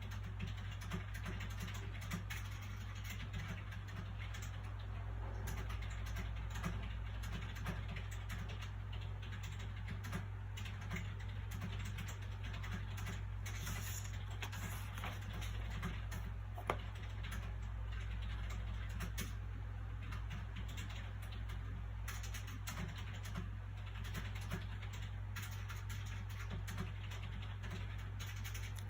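Soft paper sounds from handling a book: light rustles and small clicks and taps, one sharper click partway through, over a steady low background hum.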